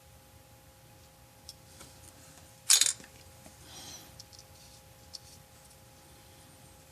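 A single sharp clink of a small hard object knocking against a hard surface on a hobby workbench, followed a second later by a faint brushing scrape and a few light ticks.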